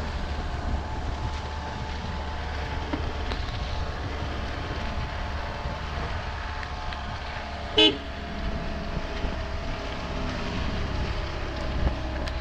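Dacia Duster running as it creeps over rough pasture, with a steady low engine hum, and one short toot of its horn about eight seconds in, the loudest sound.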